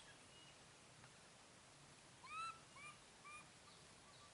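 A young macaque's coo calls: three short, high calls in quick succession about two seconds in, each rising then falling in pitch, the first the loudest.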